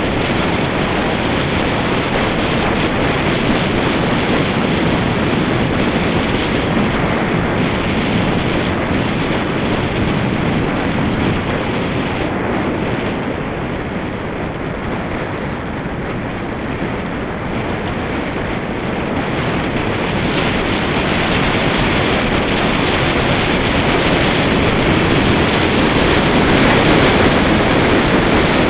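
Wind buffeting the microphone of a bicycle-mounted camera on a fast road descent, a loud steady rush. It eases a little in the middle and is loudest near the end.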